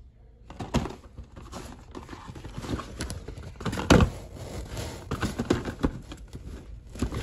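Small cardboard boxes of LED bulbs being lifted and shuffled inside a cardboard carton: rustling with irregular knocks and taps, the loudest about four seconds in.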